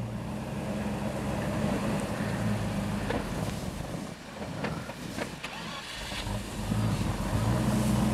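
Land Rover Discovery I engine running at low revs in low-range first gear as the truck works back and forth in deep snow. The engine note sags in the middle and rises again near the end.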